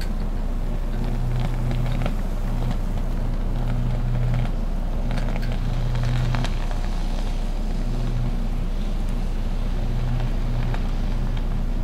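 High-voltage electrical arc on a power substation's high-tension equipment: a deep electrical buzz that swells and fades every second or so, with scattered crackling pops. It is the sound of an ongoing arcing fault.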